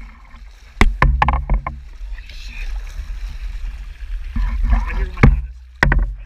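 A boat's engine running with a low, steady rumble while a hooked blue marlin thrashes against the side of the hull, splashing water, with several sharp knocks: a cluster about a second in and two more near the end.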